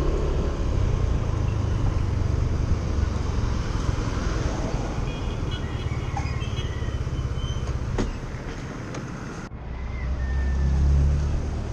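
Street traffic: a steady low rumble of passing vehicles, with one vehicle swelling louder near the end.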